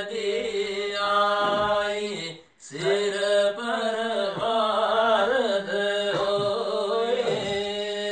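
Male voices singing Pahari kalam (Sufi devotional verse) in a chant-like style, the melody wavering above a steady held note. The sound drops out briefly about two and a half seconds in, then resumes.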